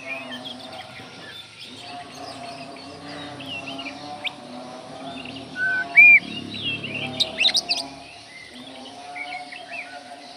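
Oriental magpie-robin (kacer) singing a varied run of whistled phrases and chirps. A loud clear whistle comes about six seconds in, followed by a burst of sharp high notes. A steady low drone runs underneath.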